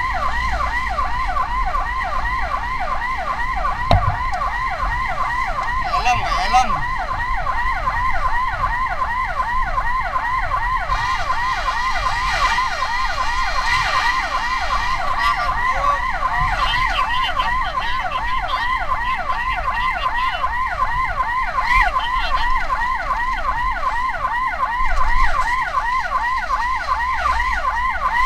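Emergency vehicle siren on a fast yelp, its pitch sweeping up and dropping back several times a second without a break, over a low steady rumble. A short knock stands out about four seconds in.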